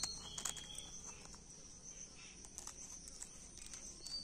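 Crickets chirring steadily, with a few sharp snips of small scissors cutting dried bay leaves.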